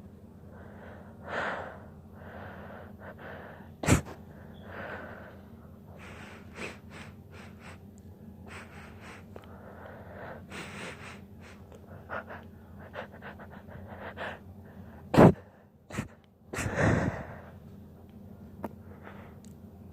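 A woman stifling sneezes: gasping, wheezy breaths building up, broken by sharp, short held-back sneezes about four seconds in and again about fifteen seconds in, the second the loudest, followed by a longer breathy burst.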